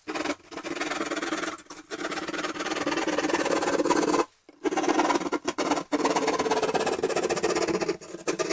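Hand keyhole saw rasping through ceiling drywall in rapid back-and-forth strokes, with a few short pauses.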